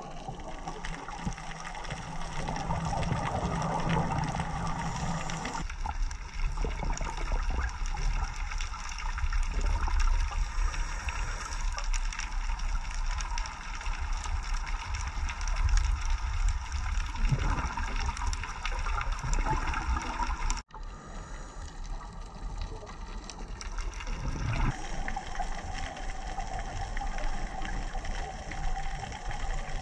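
Muffled underwater water noise picked up through a camera housing: a steady gurgling, rushing haze with a low rumble. It changes abruptly a few times at edits, with a brief dropout about two-thirds of the way through.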